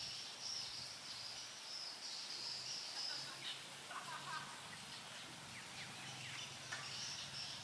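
Countryside ambience: a steady, high insect drone, with a few faint short bird chirps a little past the middle.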